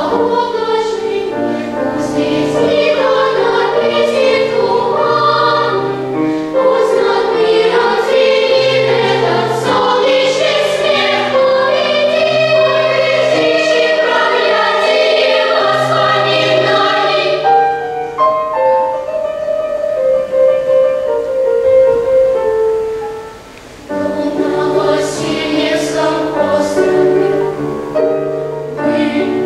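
Children's choir singing in several parts. About 18 seconds in the sound thins to a sparser, held melodic line, dips briefly, and the full choir comes back in about 24 seconds in.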